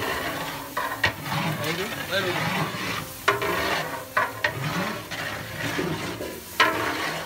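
Biryani masala sizzling in a large cooking pot while a big metal ladle stirs it, with a few sharp scrapes of the ladle against the pot.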